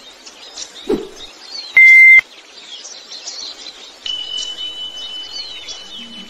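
Sound effects of an animated subscribe end screen over a bed of chirping birds. A short swoosh about a second in, a loud brief beep around two seconds in, and a long steady high beep from about four seconds on.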